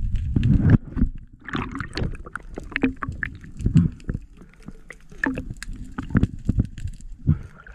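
Muffled underwater sound through a diving camera's housing: a loud rush of moving water for about the first second, then scattered clicks and knocks over a low rumble as the diver hauls in a speared fish on the line.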